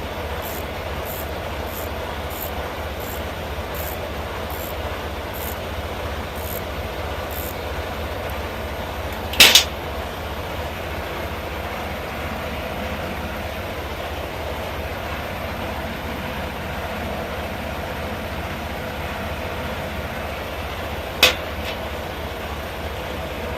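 A steady mechanical running noise with a low hum, with light ticking about twice a second during the first several seconds. Two short, loud bursts cut through it, one about nine seconds in and one near the end.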